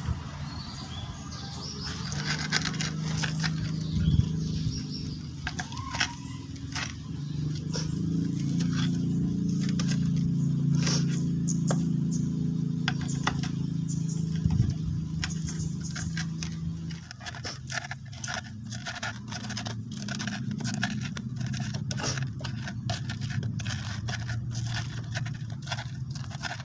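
A pestle grinding and knocking in a clay cobek mortar, crushing chilies, tomatoes and shallots for sambal: scraping strokes with sharp taps that become quick and regular in the last third. A low steady drone underlies the first two-thirds and fades out.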